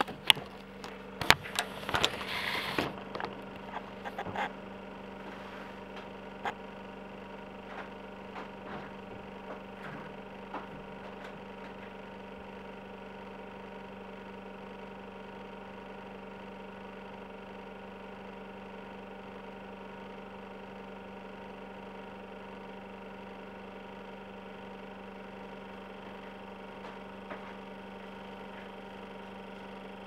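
Compressor of an old Soviet ZIL refrigerator running with a steady hum. Clicks and knocks from the camera being handled and set down come in the first few seconds.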